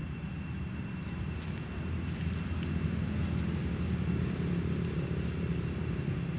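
A low steady rumble, growing a little louder about two seconds in, with a faint steady high whine above it and a few faint clicks.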